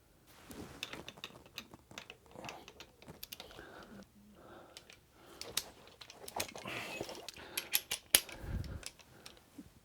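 Click-type torque wrench ratcheting in short runs of sharp clicks as a bolt is tightened into the engine casing to 11 newton metres. A louder click about 8 seconds in is followed by a dull knock.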